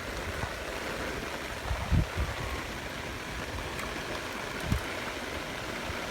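Steady hiss of rain falling, with a couple of low thumps about two seconds in and again near the end.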